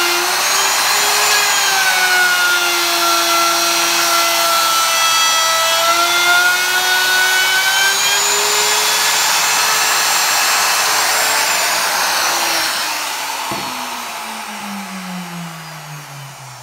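Porter-Cable router running at full speed as a bearing-guided bit cuts a profile into the end of a cherry board, its pitch sagging a little under load. About twelve seconds in it is switched off and winds down with a falling whine, with a single click shortly after.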